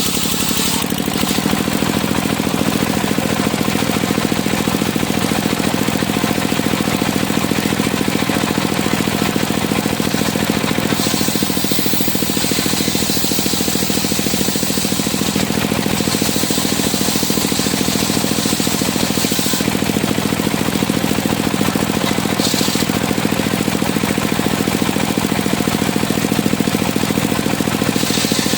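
Engine of a circular sawmill running steadily at speed, with a high hiss that grows and fades several times.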